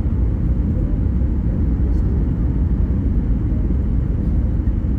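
Steady low rumble of an airliner's cabin in flight, the jet engines and airflow heard from inside.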